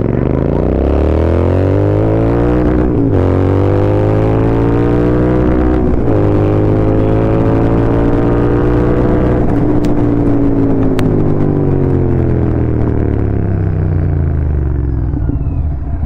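Royal Enfield Continental GT 650's parallel-twin engine through an aftermarket slip-on exhaust, accelerating up through the gears. The revs climb, drop at gear shifts about three and six seconds in, climb again to a peak around ten seconds, then fall away as the bike slows.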